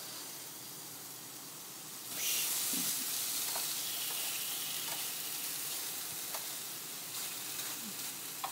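Marinated chicken sizzling on a hot electric grill plate: a faint sizzle from the first piece, then a much louder sizzle about two seconds in as the second piece goes down, easing slowly afterwards, with a few small clicks and pops.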